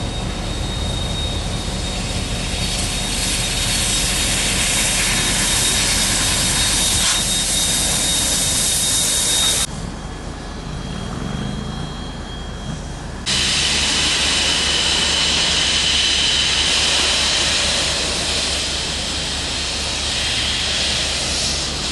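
Loud, steady hiss of steam from the JA-class steam locomotive JA1271, with a thin whistle-like tone riding on it. The hiss drops away suddenly about ten seconds in and comes back loud a few seconds later, as the cylinder drain cocks blow steam while the locomotive moves off.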